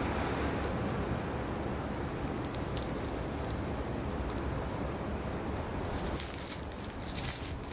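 Footsteps crunching on broken glass and burnt debris: scattered crackles that thicken into a run of crunches about six seconds in, over a steady background hiss.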